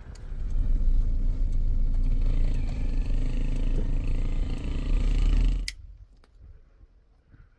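Car driving, a steady low road-and-engine rumble heard from inside the cabin, which cuts off abruptly about two-thirds of the way through.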